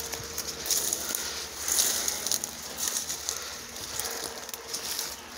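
Dry, tall grass and plant stems rustling and brushing as someone walks through them, with many small, irregular crackles.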